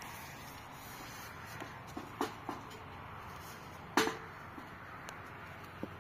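A few sharp knocks or clicks over a steady low hiss, the loudest about four seconds in with a brief ring after it.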